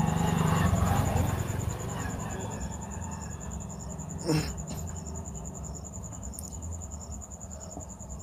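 Background insect chirping, a steady, rapidly pulsing high trill, over a low hum. A single knock sounds about four seconds in.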